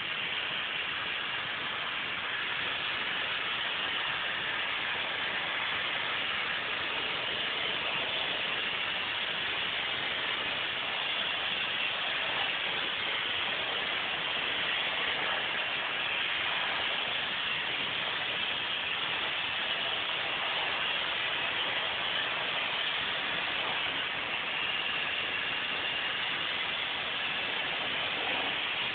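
Steady rush of air in an automotive paint spray booth, starting abruptly at the outset and holding level throughout.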